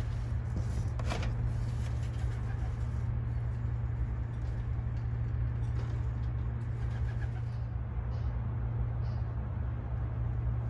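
A steady low hum under a faint even hiss, with a brief short sound about a second in.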